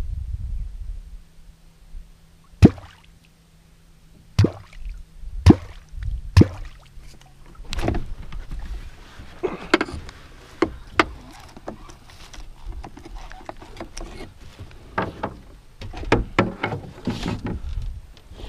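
A dozen or so sharp, irregularly spaced knocks and clunks of fishing gear handled in a small boat, the loudest about two and a half seconds in, over a faint low steady hum.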